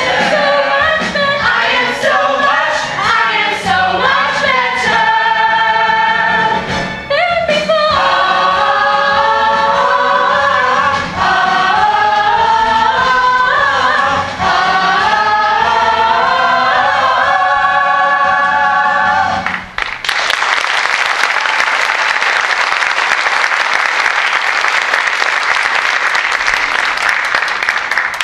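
Full cast singing the last bars of a musical-theatre finale in chorus, ending on a long held chord. About twenty seconds in the singing stops and audience applause breaks out.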